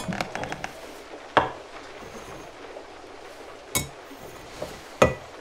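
Enamel mugs and small objects handled and set down on a wooden table: a few separate knocks and clinks, about a second and a half, nearly four and five seconds in.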